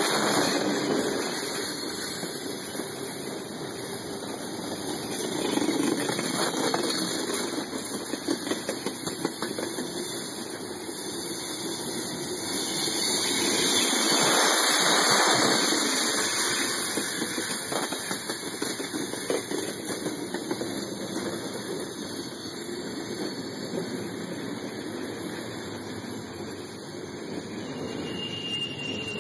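Freight train cars rolling past at close range with steady, loud wheel-on-rail noise that swells to its loudest about halfway through. A thin, high wheel squeal comes in near the end.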